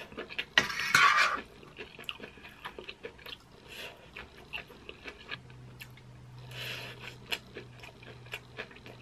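Close-up chewing of corn cheese, sweet corn kernels and melted mozzarella, with many small wet mouth clicks and smacks, and a fork scraping and picking food off a metal baking sheet.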